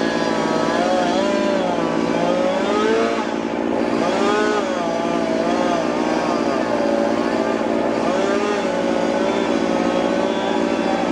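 Chainsaw running and cutting wood, its engine pitch rising and falling repeatedly as it works under load.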